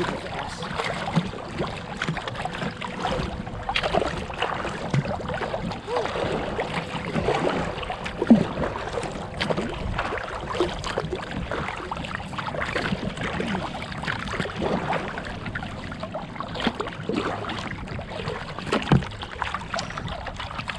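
Kayak being paddled: paddle blades dipping and pulling through the water in an irregular series of splashy strokes, over a steady wash of water along the hull.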